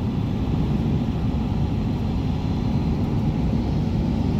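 Steady low rumble of road and engine noise inside a truck's cab at highway speed.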